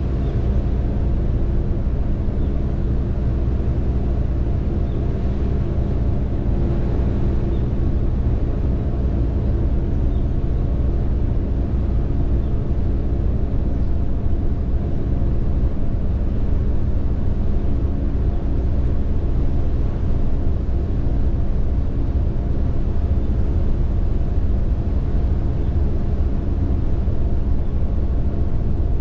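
Car ferry's engines running underway, heard on deck as a steady low drone with a constant hum of several tones.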